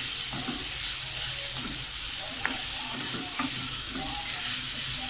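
Shredded cabbage sizzling in a little oil in a nonstick frying pan over high flame, stirred and turned with a spatula, with a few soft scrapes of the spatula against the pan.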